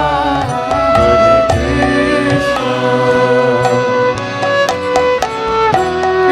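Devotional kirtan music: voices singing long held notes over a hand drum and ringing hand cymbals.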